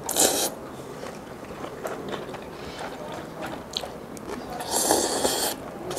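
Close-miked chewing of a mouthful of Chinese cold noodles with seafood and jellyfish, with small mouth clicks. Two short, louder bursts of noise come at the start and about five seconds in.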